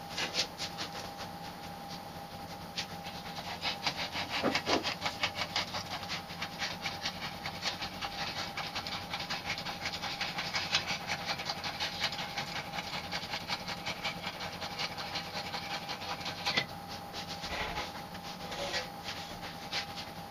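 Hydraulic engine hoist being pumped to lift a car body shell, with a long run of rapid clicking and creaking over a steady hum; the clicking stops about three-quarters of the way through, with a few lighter creaks after.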